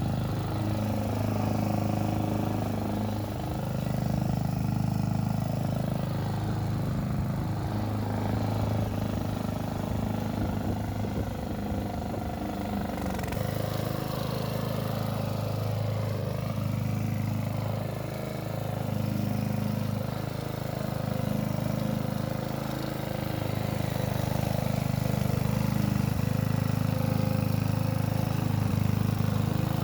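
Hyundai HY145V petrol lawn mower engine running steadily while mowing grass.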